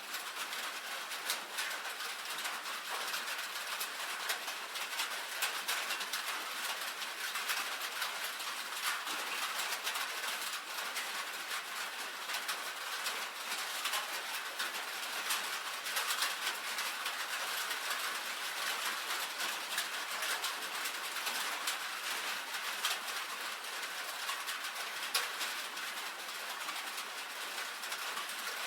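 Steady rain pattering on a tin roof: a dense, even patter of many individual drop ticks on the metal.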